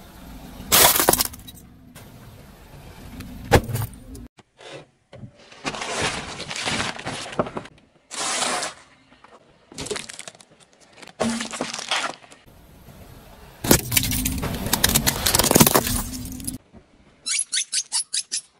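Car tyre rolling over and crushing plastic objects: a plastic box of chocolate coins, then a candy tube. There is a series of separate cracks, crunches and pops, each cut off abruptly. Near the end comes a quick run of about eight short, evenly spaced sharp sounds.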